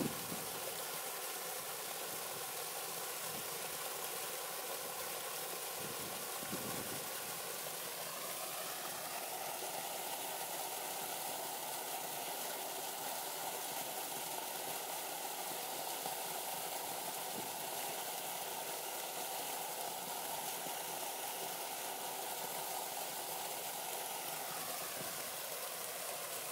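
Small waterfall pouring over a rock ledge into a river pool: a steady rush of falling, splashing water.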